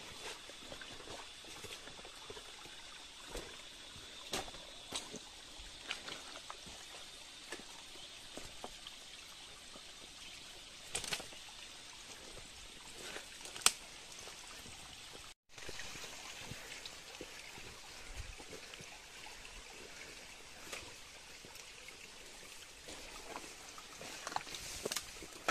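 Water trickling steadily, with scattered sharp clicks and ticks over it, the loudest a little past halfway. A faint steady high tone runs through the first few seconds.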